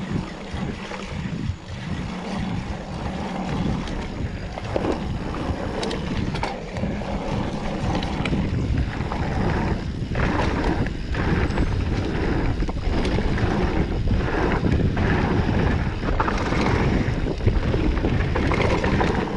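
Mountain bike descending a dirt singletrack at speed: wind buffeting the camera microphone, tyres rolling over dirt, and the bike rattling over bumps. It gets louder about halfway through as the speed builds.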